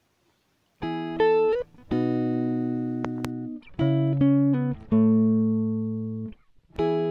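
Background music: a short run of plucked notes, each struck sharply and left to ring and fade, after a brief silence at the start.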